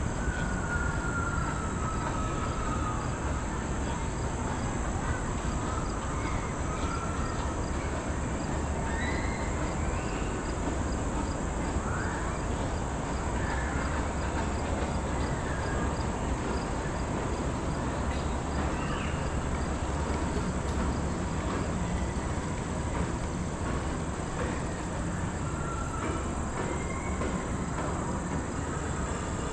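Chairlift running: a steady rumble from the haul rope and sheaves, heard from a moving chair, with scattered faint short whistles.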